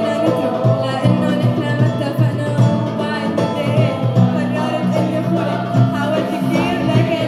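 Youth choir singing live in several voices, over a hand drum keeping a steady beat of about two strokes a second.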